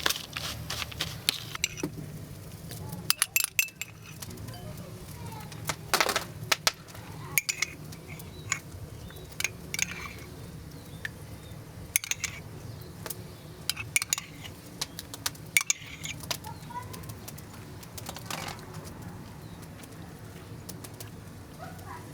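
Dishes and utensils clinking and knocking at irregular intervals, a few sharp strikes ringing briefly, over a steady low hum.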